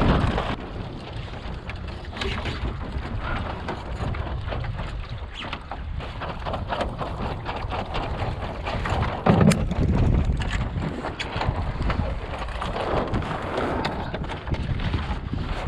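Wind buffeting the microphone aboard a small wooden sailboat, with scattered knocks and rustles and one louder thump about nine and a half seconds in.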